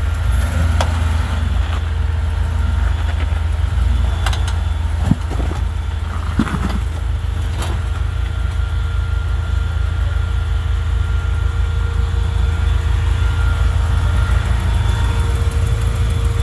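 Lifted Ford Bronco's V8 running steadily at low revs as it crawls over a rock and concrete-pipe obstacle, with a few short sharp knocks from about four to eight seconds in. The truck is hung up on its front differential, so the front tyres are not pulling.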